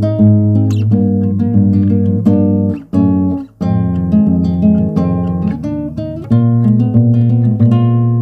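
Background music: acoustic guitar strumming and picking chords, with a short break about three and a half seconds in.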